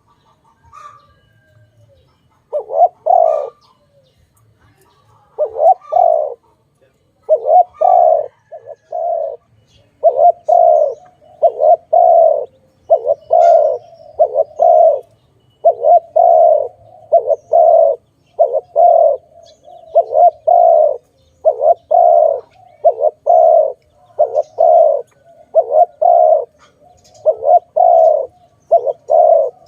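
Spotted dove cooing over and over: short phrases of two or three coos, repeated every second or two, starting a couple of seconds in.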